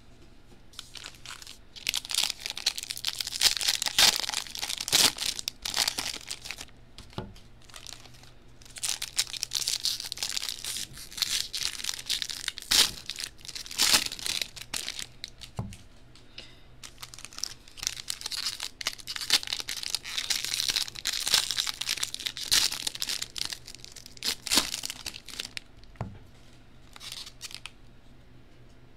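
Trading-card pack wrappers being torn open and crinkled. There are three long stretches of crackling rustle with sharp snaps in them, separated by short pauses.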